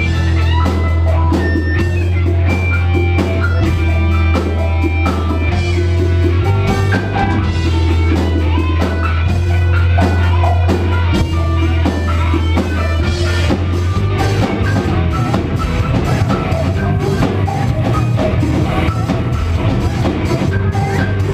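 Live rock band playing instrumental music on electric guitars and drum kit. A low note is held under the guitar lines for the first half, then the playing grows busier and denser about thirteen seconds in.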